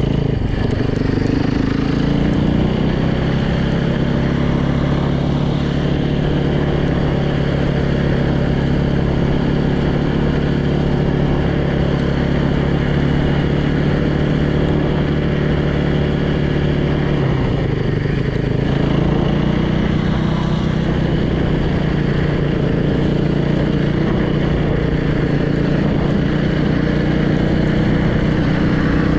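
Freshly rebuilt Yamaha YZ450's single-cylinder four-stroke engine running steadily while the dirt bike is ridden along. The engine note drops briefly about two-thirds of the way in, then comes back up.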